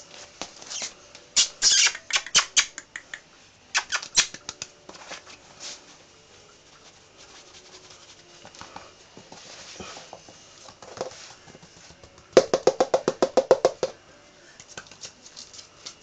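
French bulldog puppy's claws and paws clicking and tapping on a wooden floor as it plays, in short bursts. About three quarters of the way through comes a quick run of about a dozen loud taps.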